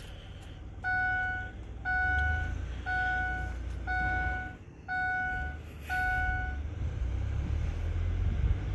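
Ford 7.3 Powerstroke truck's dashboard warning chime dinging six times, about once a second, with the key switched on while the glow plugs cycle before a start attempt. A low rumble runs underneath.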